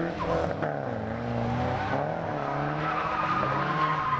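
Cars drifting on asphalt: engines revving up and down as the drivers work the throttle, with a steady tire squeal setting in near the end.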